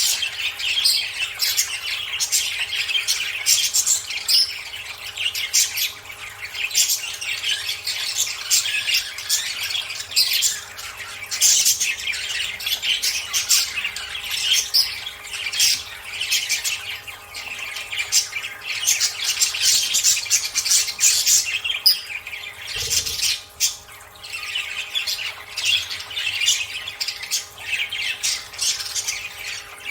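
Budgerigars chattering and squawking continuously, a dense run of rapid, scratchy warbles and sharp short calls.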